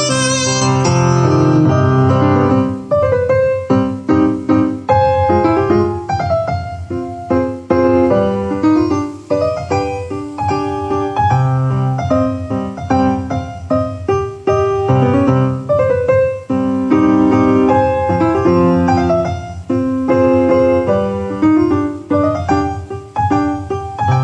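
Piano music played loudly through a Cerwin-Vega AT-12 loudspeaker driven by a homemade LM741 op-amp power amplifier, heard in the room. This is a listening test of the amplifier's distortion, and the sound is clean, with the higher-order harmonics cut by new driver transistors.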